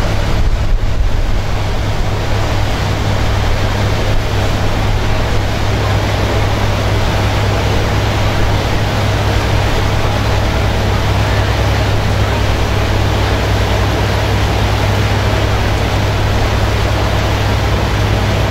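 Passenger boat under way: a steady low engine hum with the rush of water along the hull and wake.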